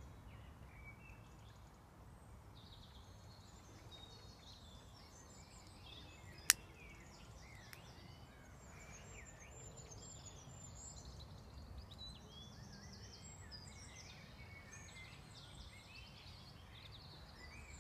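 Birds chirping and calling, many short scattered notes, over a steady low outdoor rumble, with a single sharp click partway through.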